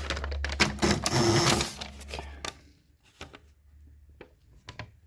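Royal manual typewriter in a transparent plastic case being worked: a dense mechanical clatter of clicks and ratcheting for the first two and a half seconds, then a few separate sharp clicks.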